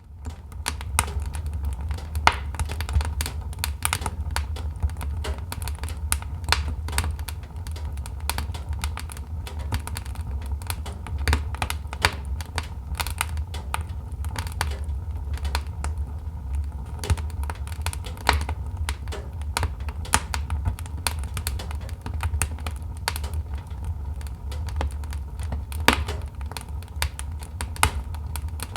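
Wood fire burning in a fireplace, logs crackling with many irregular sharp pops over a steady low rumble of the flames.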